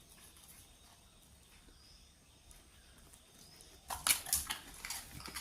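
A Labrador crunching a dry dog biscuit: a quick run of sharp, crackly crunches that starts about four seconds in, after a quiet stretch.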